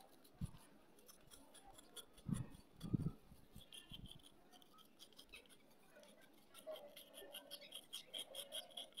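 Knife blade scraping a dried clay ring, short scratchy strokes shaving powder off its surface. A few low thumps come in the first three seconds, and from about six seconds in the scraping runs at about four strokes a second.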